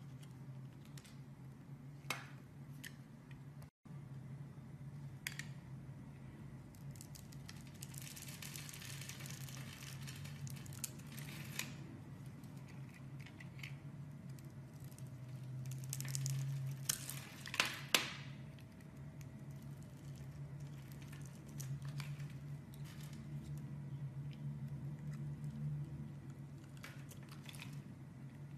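A utility knife blade slicing into bars of soap, with repeated crisp scraping and crackling cuts as flakes and small scored cubes break off and fall. The cutting grows denser in stretches and has a few sharp clicks in the middle.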